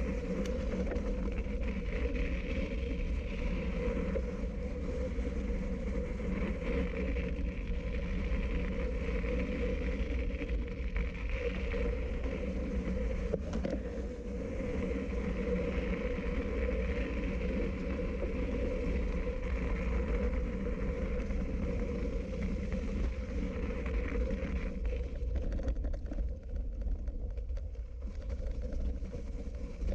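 A motor running steadily at constant pitch, over a low rumble.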